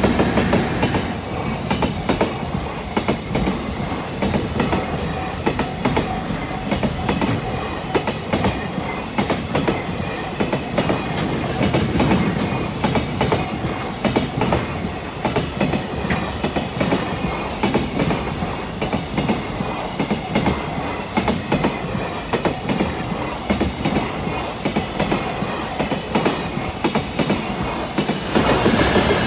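Freight train passing, its wheels clattering over the rail joints in a long, steady run of clicks over a loud rumble.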